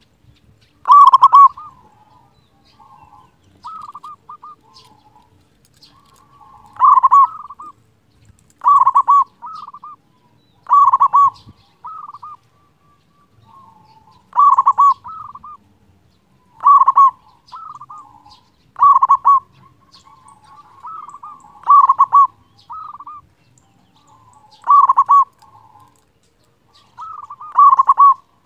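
Zebra dove (perkutut) singing its loud rolling coo, a strong phrase about every two to three seconds with softer cooing notes between.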